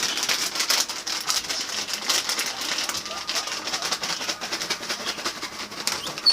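Steady crackling rustle made of many small clicks, with a brief high squeak right at the end from a guinea pig.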